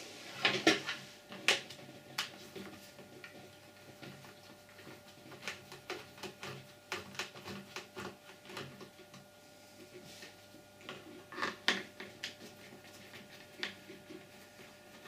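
Scattered clicks, taps and knocks of hands handling and taking apart the plastic housing of a small 12 V air compressor, with louder knocks about half a second to a second and a half in and again around eleven to twelve seconds in.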